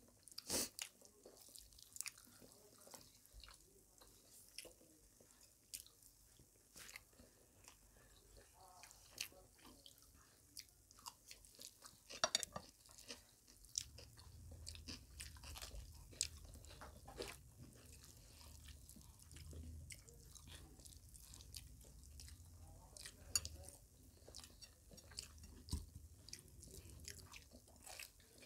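Faint, close-up eating sounds: two people chewing and smacking their lips, with short wet clicks as fingers mix rice and curry on their plates. A low hum comes in about halfway through.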